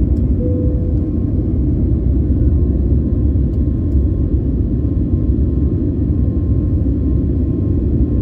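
Airbus A321neo cabin noise during the climb after takeoff: a loud, steady low rumble of the engines and the air rushing past the fuselage, with a faint steady whine.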